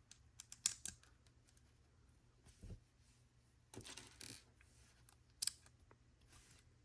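Small plastic LEGO pieces clicking and rattling against each other as they are picked out and handled, in scattered short clicks with a small cluster about four seconds in.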